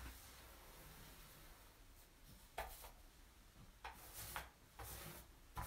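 Faint rubbing strokes of a paint roller working textured stone coating across a countertop. A few short strokes come from about two and a half seconds in, after a quiet start.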